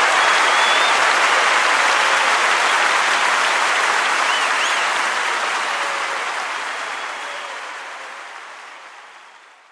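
Audience applauding, a dense steady clapping that fades out over the last few seconds.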